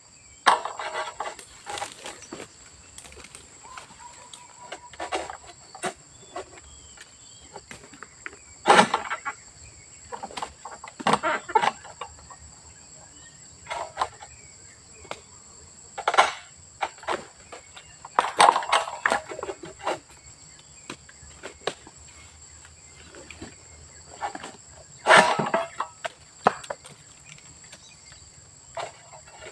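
Long-pole harvesting sickle (egrek) hacking and pulling at oil palm fronds high in a tall palm: irregular cutting strokes a few seconds apart, over a steady high insect drone.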